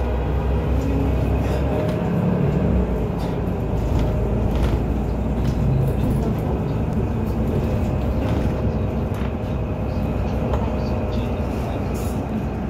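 Cabin noise of a Mercedes-Benz Citaro diesel city bus under way: steady engine and road rumble, heard from inside.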